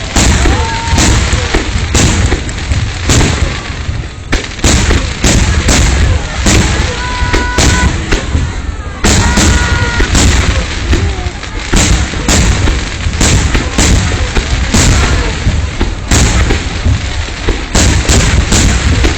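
Fireworks finale barrage: aerial shells bursting in rapid succession, several loud booms and cracks a second with no break.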